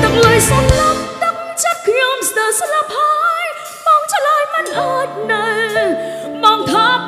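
Khmer pop song: a woman sings with wide vibrato over the instrumental backing. The bass drops out about a second in and comes back a little past halfway.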